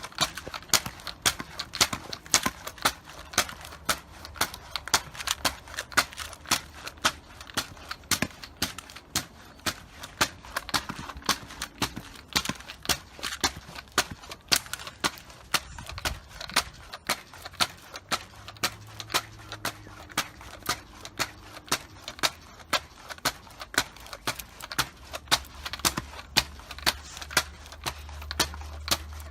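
Pogo stick bouncing steadily, the spring and foot landing with a sharp clack about twice a second.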